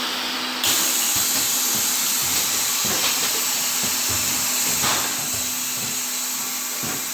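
Cooking-oil liquid filling machine running: a steady hum with a loud hiss that cuts in suddenly about half a second in and holds, and a couple of soft knocks.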